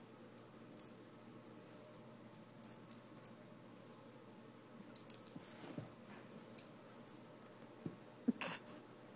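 A dog playing with a stuffed toy mouse on carpet, rolling about and chewing: scattered light clicking and jingling, faint, with a brief low grunt near the end.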